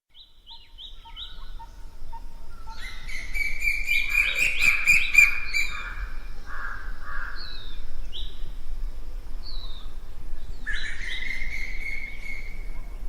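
Several birds singing and calling over a steady low background hum. Short repeated falling notes come throughout, and a longer drawn-out call sounds twice, about three seconds in and again after ten seconds. The sound fades in over the first few seconds.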